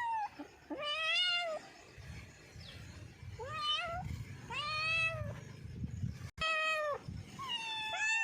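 Domestic cats meowing: about five separate drawn-out meows with short pauses between, each rising then falling in pitch, the longest about five seconds in.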